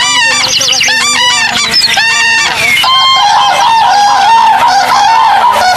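Loud animal calls: a quick run of short, pitched calls several a second, giving way about halfway through to a steadier, wavering high call.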